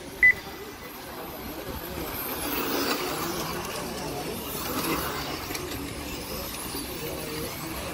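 Electric touring RC cars running on the track, a steady whir that swells and fades as they pass. A short, loud beep about a quarter second in, typical of the lap-timing system as a car crosses the line.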